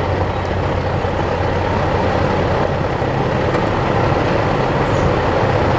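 An engine running steadily, a constant low rumble with no change in speed.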